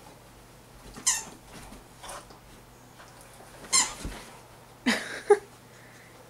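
A squeaky beer-can-shaped dog toy squeaking about five times at irregular intervals as a Labrador puppy chews it.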